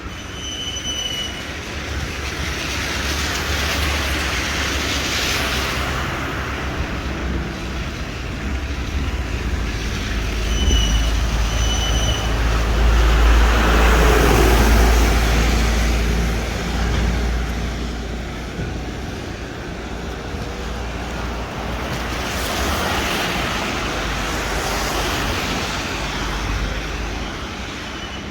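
Vehicles passing on a wet street, the hiss of tyres on wet road swelling and fading three times over a steady low rumble. A few short high beeps sound near the start and twice more a little before the middle.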